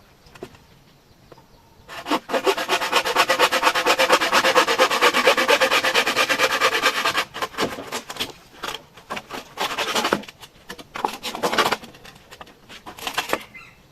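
A hand tool rasping against bamboo: a dense run of rapid scraping strokes lasting about five seconds, then several shorter bursts.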